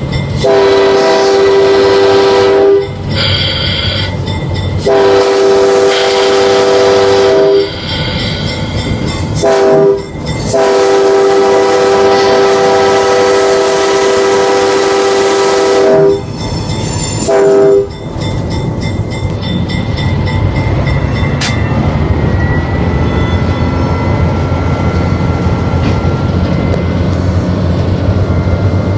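Locomotive air horn sounding the grade-crossing signal in a chord of several tones: two long blasts, a short one and a long one, then a brief extra toot. After that the train runs on with a steady low rumble and a faint drawn-out squeal.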